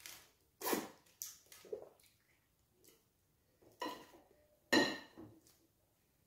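Close-miked eating of wheat fufu and banga soup by hand: a string of separate wet mouth smacks and chewing noises, with a few sharp knocks among them. The loudest comes about five seconds in.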